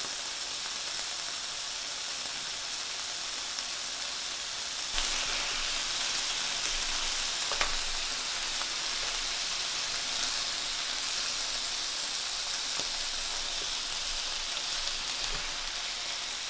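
Thin-sliced LA-style beef short ribs sizzling on a hot electric grill pan, a steady frying hiss. About five seconds in the sizzle gets louder, and there are a few light clicks of tongs as the strips are turned.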